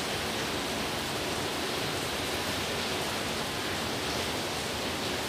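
Steady, even hiss of background noise with no distinct events in it.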